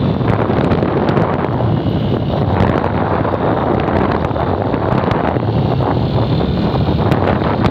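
Heavy wind buffeting the microphone of a camera on a moving road vehicle, with steady vehicle and road noise under it.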